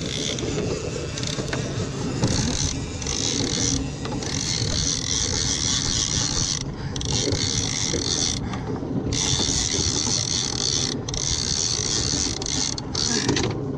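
Gold lever-drag trolling reel cranked steadily as line is wound in on a hooked false albacore, the winding breaking off briefly several times. A steady low rumble of the boat runs underneath.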